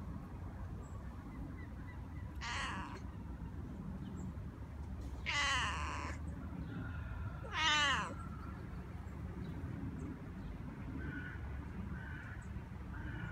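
Tabby-and-white domestic cat meowing three times a few seconds apart, the later calls louder and the last one falling in pitch.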